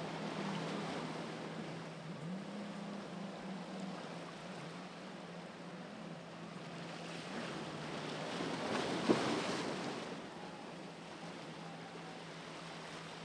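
Jet skis running offshore, a steady engine drone that rises briefly about two seconds in, over a hiss of surf and wind. A wave washes in louder about nine seconds in.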